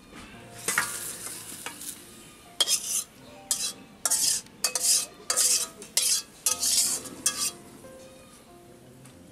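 Metal spatula scraping and clanking against a black wok and a steel colander as fried taro stems are scraped out of the hot pan. One stroke comes just under a second in, then a quick run of about a dozen strokes in the middle, some leaving a short metallic ring, over a light sizzle.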